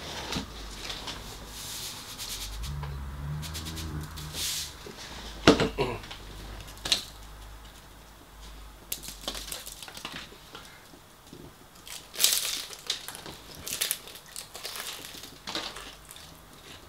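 Close-up eating of crispy battered fried food: irregular crunching bites and chewing, with rustling of paper wrapping. The loudest crunch or rustle comes about five and a half seconds in.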